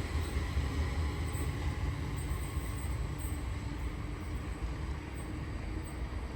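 Sydney Trains Waratah electric train running through the station, a steady low rumble that eases slightly at first and then holds level.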